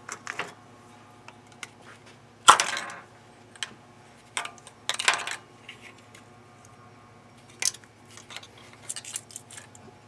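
Hands and a small metal hook tool working a motorcycle spark plug wire and its boot loose: scattered light clicks and clinks. A sharp metallic clink about two and a half seconds in is the loudest, and a rougher scraping knock follows near five seconds.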